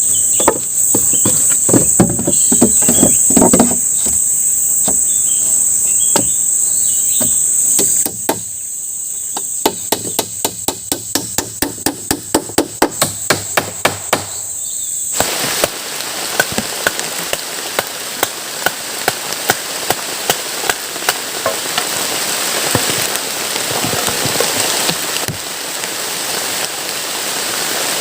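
Repeated knocks of a tool striking wood, at about two to three a second for a stretch, over a steady high-pitched insect drone. About halfway through, the sound changes abruptly to heavy rain falling, with scattered drop hits.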